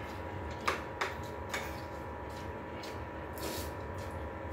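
Spoons and plates clinking during a meal: a few sharp clicks in the first two seconds and a short hiss about three and a half seconds in, over a steady background hum.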